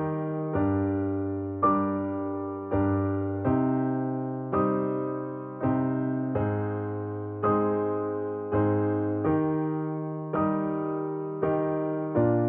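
Slow keyboard music: chords struck about once a second, each left to fade before the next.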